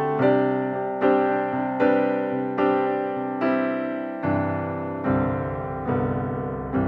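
Background piano music: slow, gentle notes and chords struck a little more than once a second.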